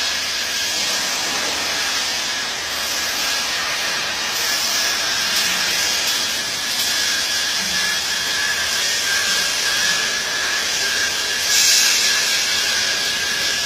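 MIG welding arc burning steadily, a continuous hiss with a faint steady high whine, swelling briefly near the end.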